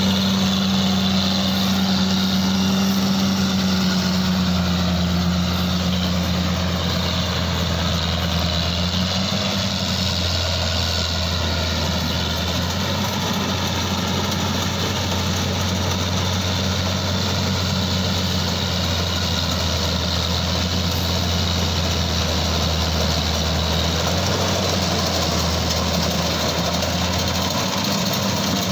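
Claas Crop Tiger combine harvester running steadily under load as it cuts paddy, a continuous engine drone with a low steady hum.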